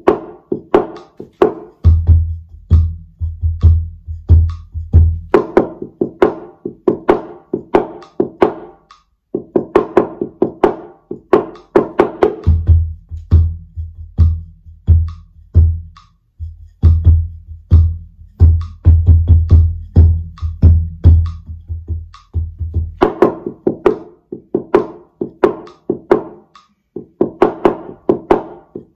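Taiko drums playing a call-and-response duet, the shime-daiko and chū-daiko parts together. Rapid strikes on the higher-pitched shime alternate with passages of deep chū-daiko hits, which come in about two seconds in for a few seconds and again from about twelve seconds in for roughly ten seconds.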